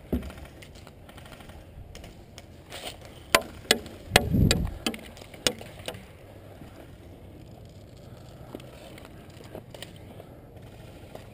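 Scattered clicks, knocks and rattles of gear handling as the player moves into cover against a wooden barricade, with a heavier low thump about four seconds in.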